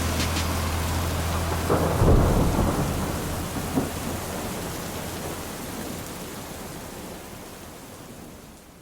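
Steady rain with rolls of thunder, the loudest rumble about two seconds in, the whole fading slowly away.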